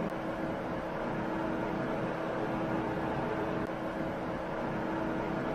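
Steady in-car engine and road noise picked up by a dash camera, with a constant hum over it.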